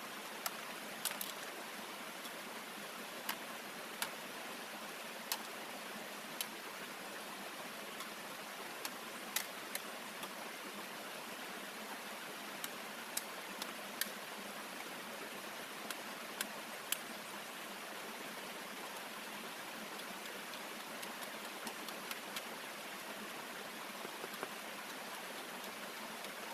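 Steady rush of a small waterfall tumbling over rocks in a stream, with light, sharp clicks and taps now and then close by.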